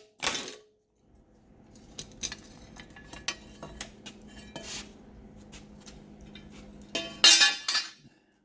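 Metal transmission parts clinking and clattering as a component is worked off the 4L60E transmission case by hand. There are scattered light clinks, then a louder clatter about seven seconds in.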